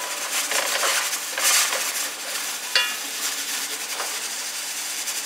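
Chopped onions and turmeric sizzling in hot oil while a plastic slotted spoon stirs and scrapes them around the bottom of a large pot, with a short squeak near the middle.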